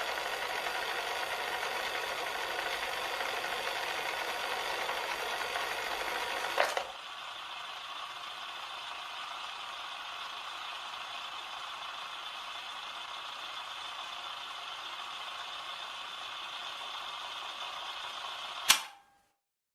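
Cassette player's tape mechanism running with a steady whirr. A click comes about a third of the way in, after which it runs on more quietly. A loud click comes near the end, and the sound cuts off at once.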